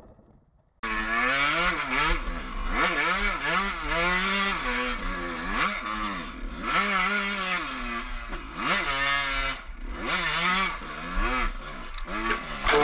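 Suzuki enduro motorcycle engine heard on board, revved up and down over and over as it climbs rough forest ground, its pitch rising and falling about once a second. It starts suddenly about a second in, after a moment of near quiet.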